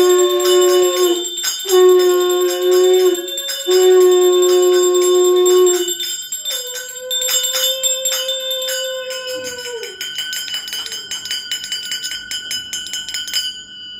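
Conch shell (shankha) blown in four long blasts, each bending down in pitch as it ends, the last one higher than the others, while a small brass hand bell is rung rapidly throughout: the conch and bell of a Hindu arati. The bell stops shortly before the end.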